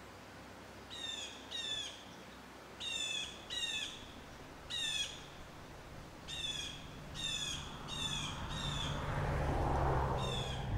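A bird giving short calls, about ten in all, several in quick pairs. A low rumble builds over the last few seconds.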